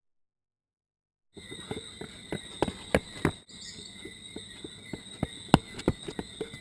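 Dead silence for about a second and a half, then a faint steady high-pitched hum with irregular sharp clicks and taps scattered through it.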